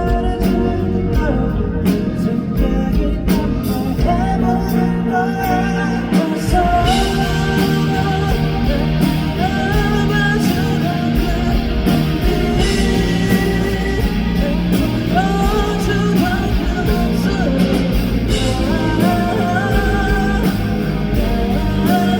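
A live rock band playing a song through the concert PA: electric guitars, bass and drums under a sung lead vocal.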